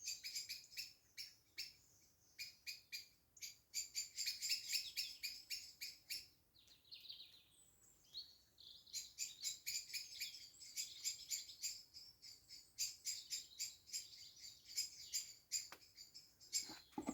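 Birds singing, a fast run of high, faint chirps and twitters, thinning out for a couple of seconds midway before picking up again.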